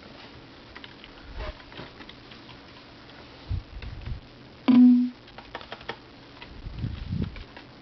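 Computer keyboard being typed on in scattered keystrokes, with a sharp click and a short steady low tone about halfway through.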